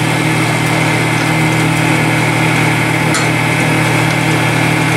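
Old cast-iron wood lathe running steadily with a motor hum, while a hand-held turning tool shaves the spinning wooden blank.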